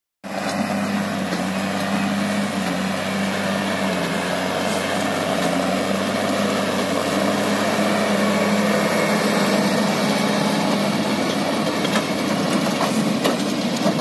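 New Holland T6070 tractor's six-cylinder diesel engine running steadily under load while pulling a working New Holland BB 890 Plus big square baler, with the baler's machinery adding a clatter. A few sharp clicks come near the end.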